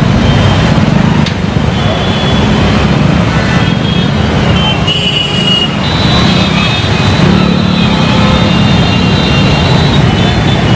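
Street traffic on a flooded road: motorcycle and scooter engines running steadily, with a mix of high thin tones coming and going over the top.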